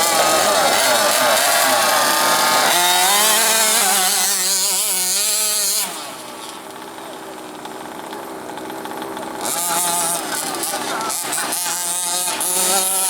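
Small gasoline two-stroke engine of a large-scale RC monster truck running and revving, its pitch wavering up and down. It drops quieter about six seconds in and picks up again near ten seconds.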